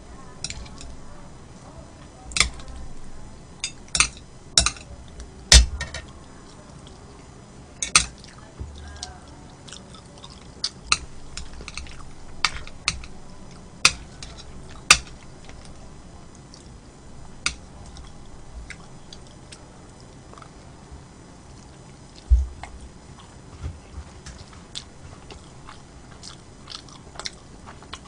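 Close-miked eating: chewing and wet mouth sounds, with sharp clicks at irregular intervals, a few of them much louder than the rest.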